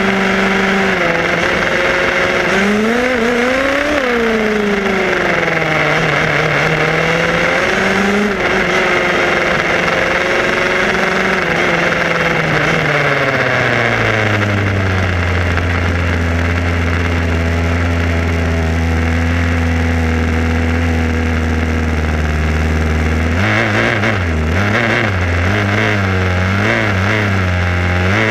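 A Tamiya radio-controlled buggy's motor and drivetrain whining, the pitch rising and falling as the throttle changes. About halfway through, a steady low hum takes over, and it wavers up and down near the end.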